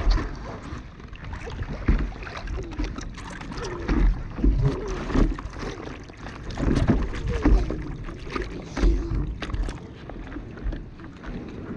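Pool water splashing and lapping against a boogie board right at the camera, with irregular low thumps as the water slaps the board.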